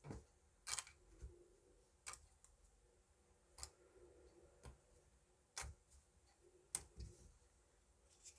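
Hwatu cards snapped down one at a time: sharp, short slaps, about eight of them at uneven intervals, with faint handling between.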